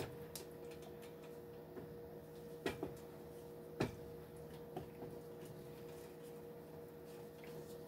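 Wooden spoon stirring thick white sauce gravy in a nonstick skillet, scraping with a few light knocks against the pan a little under three and about four seconds in, over a steady low hum.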